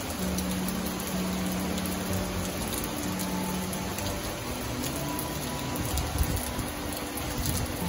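Heavy rain falling steadily, a dense even hiss, with soft background music of long held notes underneath.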